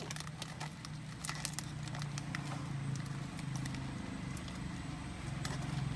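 Steady low rumble of a running vehicle with scattered clicks and crackles, getting a little louder near the end.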